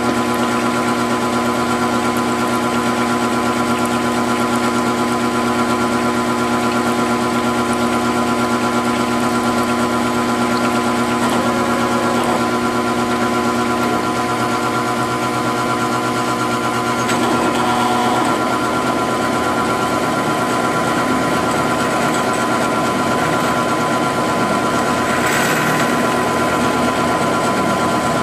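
Grizzly G0705 CNC-converted mill running a V-cutter pass to cut an O-ring groove, its spindle and drive motors giving a steady whine of several tones.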